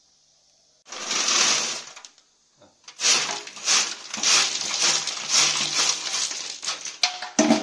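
River pebbles clattering as they are tipped out of a metal paint bucket onto concrete. There is a short rush about a second in, then a longer run of tumbling stones from about three seconds in.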